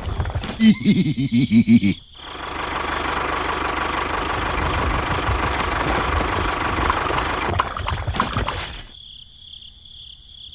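Engine-like mechanical running sound in abruptly cut segments. It pulses for the first two seconds, then runs steadily with a faint whine, and drops away about nine seconds in.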